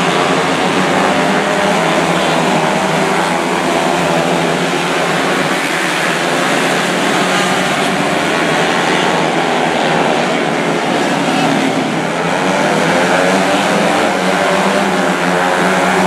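A pack of 125cc micro sprint cars racing, many small engines running together at high revs, their pitch rising and falling as cars go by.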